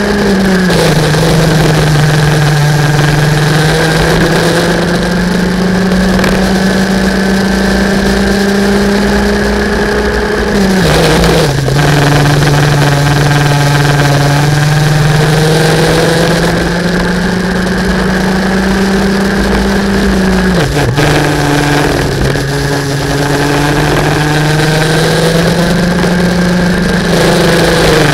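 Racing kart engine running flat out on track. Its pitch climbs slowly along each straight and falls sharply when the driver lifts for a corner, about ten seconds in, again about twenty seconds in, and at the very end.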